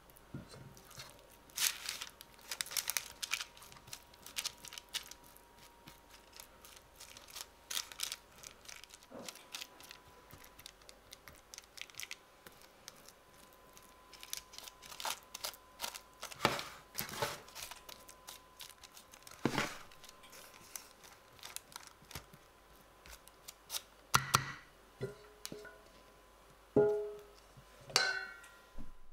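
A metal spatula scraping and tapping as it presses a sticky chocolate-nut base flat in a baking-paper-lined metal tin, the paper crinkling, in scattered short strokes. Near the end, cashew nuts clatter into a stainless steel bowl, which rings briefly.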